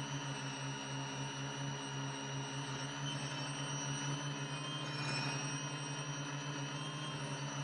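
Quadcopter's electric motors and propellers running steadily, heard from the onboard camera: a low buzz that pulses in level under several high steady whines that waver slightly about five seconds in as the motor speeds shift.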